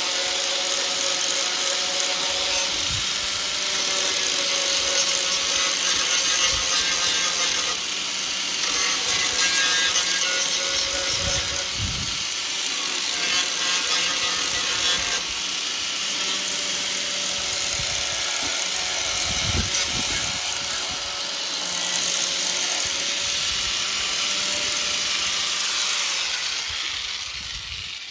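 Angle grinder grinding the paint back to bare metal on a 1968 Morris 1100's steel inner wing, its motor whine wavering as it bites into the panel. The grinder winds down near the end.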